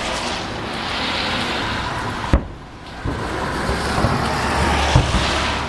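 Vehicle traffic with tyre noise swelling, passing the house twice, with a few short low thuds of distant fireworks.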